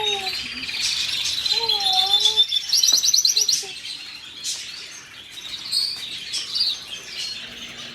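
A group of caged parrots chirping and twittering continuously, with a rapid trill about three seconds in and a few lower gliding whistles in the first two seconds.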